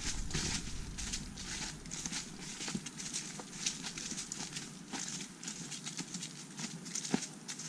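Footsteps of hikers walking over dry fallen leaves on a trail, a steady walking rhythm of about two steps a second.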